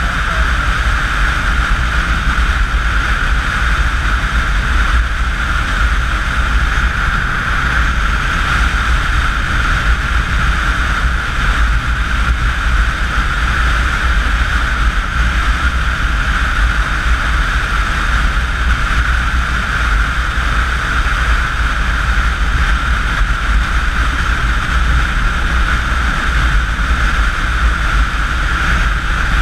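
Motorcycle cruising at highway speed, heard from the rider's camera: a loud, steady rush of wind on the microphone with a deep rumble, mixed with the bike's engine drone.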